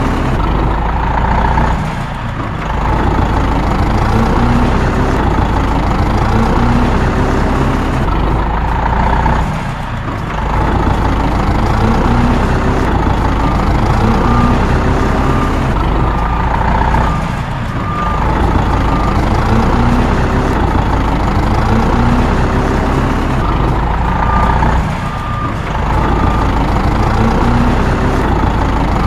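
Heavy truck engine running, with short beeps like a reversing alarm. The whole sound repeats in a loop, dipping briefly about every seven and a half seconds.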